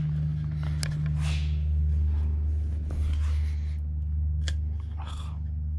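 A steady low hum, with a few light clicks and soft rubbing of hands handling a door seal.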